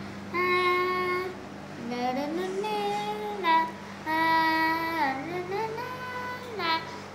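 A child singing unaccompanied: long held notes joined by slides up and down in pitch, with short breaks between phrases.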